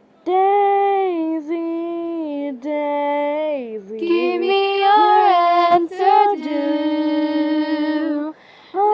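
A woman singing unaccompanied, holding long notes and gliding between them, with a short sharp click about six seconds in.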